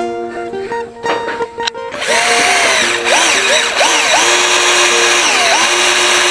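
Cordless drill boring a hole into a timber bracket, starting about two seconds in, its whine rising and falling as the speed changes. Background music plays throughout.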